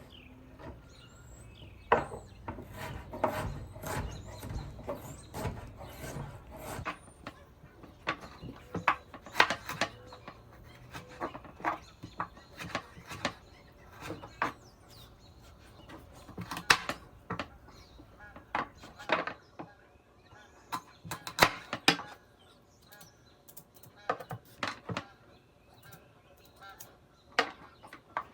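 Kitchen food preparation: irregular taps, clicks and knocks of utensils and ingredients being handled on a work surface, sometimes several in quick succession, with a faint low hum during the first few seconds.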